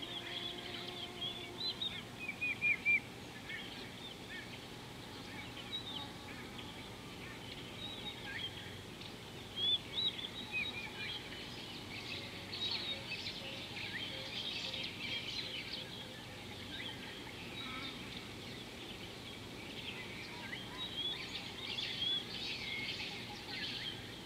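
Small birds chirping and twittering, many short overlapping calls, busier in the middle and near the end, over a steady outdoor background hiss.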